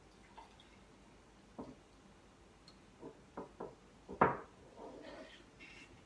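Milk kefir being poured from a mixing bowl into a jug, with faint liquid sounds and a few sharp knocks of crockery and glass on the counter. The loudest knock comes a little after four seconds.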